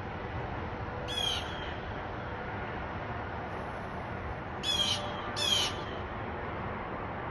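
A bird giving three short, harsh calls: one about a second in and two close together past the middle, over a steady outdoor hiss.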